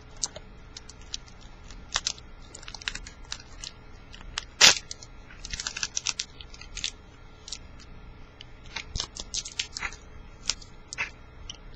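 Crinkling and tearing of a foil trading-card pack wrapper being opened, with light clicks and crackles of the cards being handled. One louder snap comes about four and a half seconds in.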